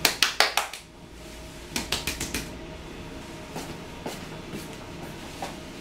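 A person clapping their hands in quick runs: a burst of about six sharp claps in the first second and a second burst about two seconds in, followed by a few faint scattered taps.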